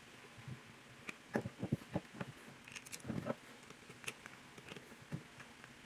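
Faint small clicks and scrapes of a screwdriver working against the plastic terminal block of a sewing-machine motor as the block is set back in place and screwed down. The clicks come in bunches about a second and a half and three seconds in, with a couple of single ones later.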